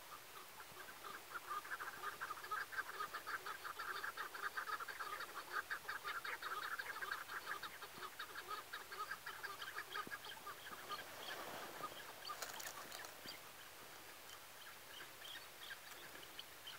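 Chukar partridge calls: a long, rapid run of clucking chuk notes that builds from about a second in and is strongest through the middle. It fades after about ten seconds to scattered fainter calls. A brief sharp click comes about twelve and a half seconds in.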